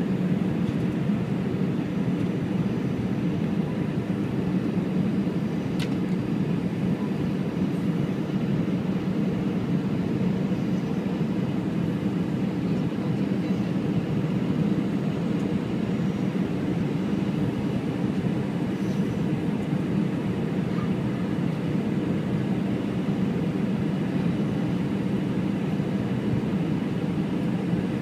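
Steady cabin noise inside an Airbus A321 on final approach: a low, even drone of the jet engine and airflow, heard from a window seat beside the wing.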